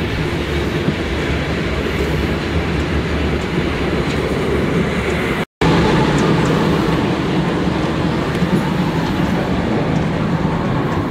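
Steady, loud rushing noise of a steam train standing at the platform, with a brief dropout a little past halfway.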